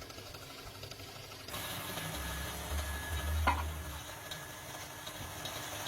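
Workshop machinery running with a steady noise; the sound changes abruptly about a second and a half in, a low rumble follows, and there is one sharp metallic knock about three and a half seconds in.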